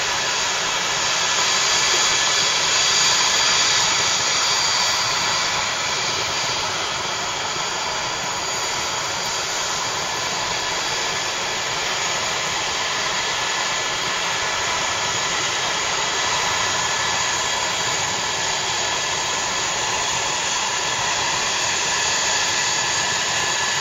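Eurocopter EC135 helicopter's turbine engines running steadily on the ground: a continuous jet-like rush of air with a high, steady whine, swelling slightly a couple of seconds in.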